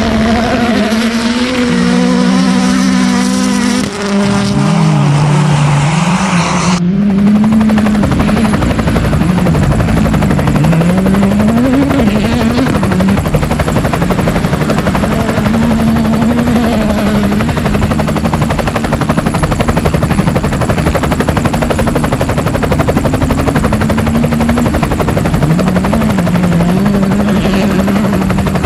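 Helicopter rotor and engine noise with a rally car's engine beneath, its pitch stepping and swooping up and down as it revs through the gears. The sound changes abruptly about seven seconds in.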